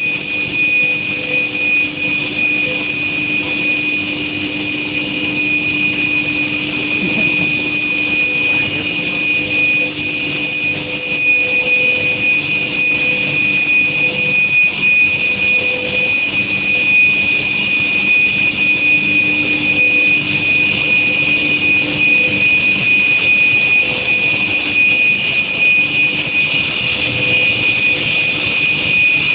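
Induction heat treatment machine running: a steady high-pitched whine over a constant, noisy machine hum.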